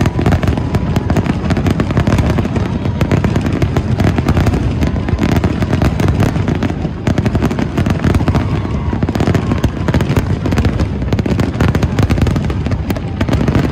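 Aerial firework shells bursting in a rapid, unbroken barrage, the booms overlapping many to the second: a grand-finale volley.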